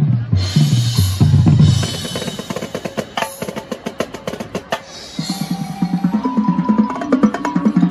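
High school marching band playing: the drumline's snare and bass drums hit a dense run of sharp strokes in the middle, with cymbal crashes early on and a low brass line underneath.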